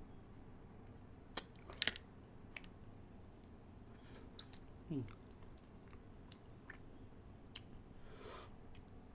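A person chewing and picking apart pickled crab from a papaya salad, with scattered sharp clicks of shell and mouth sounds, the loudest about two seconds in. A short falling low sound comes about five seconds in, and a brief hiss comes near the end.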